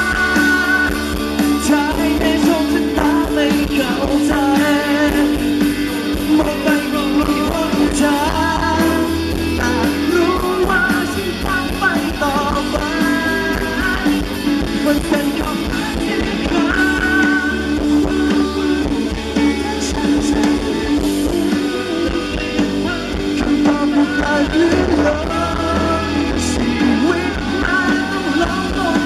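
Live rock band music: a male singer singing a melody into a microphone over drums and a full band, steady and loud throughout.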